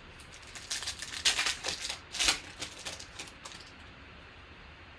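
Trading cards being handled and flipped through by hand: a run of quick clicks, slaps and rustles for about three seconds, which then stops.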